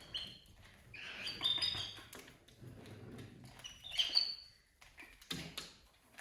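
Pet parrot giving short high-pitched chirps and squawks, in two bursts about a second in and again about four seconds in.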